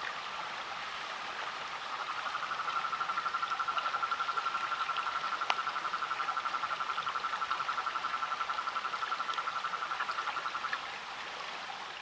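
Rhinella ornata toad calling: one long trill of rapid, even pulses at a single pitch that builds in over the first couple of seconds and stops about eleven seconds in. A steady background hiss runs under it, with one sharp click in the middle.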